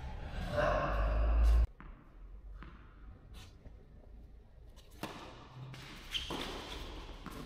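A loud rushing noise with a deep rumble cuts off abruptly under two seconds in. A tennis ball is then bounced a couple of times on the court, and a racket strikes it on a serve with a sharp ringing pop a little after six seconds in.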